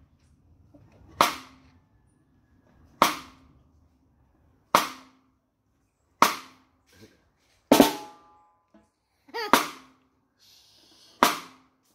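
Cross-stick on a snare drum: the stick lies across the head under the palm, and its shaft clicks against the rim seven times, one stroke about every second and a half, each with a short ring from the drum.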